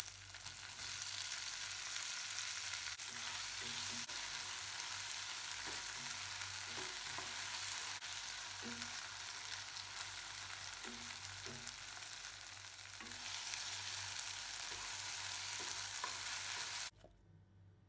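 Food sizzling in an oiled pan, with repeated short scraping strokes as it is stirred. The sizzle cuts off suddenly near the end.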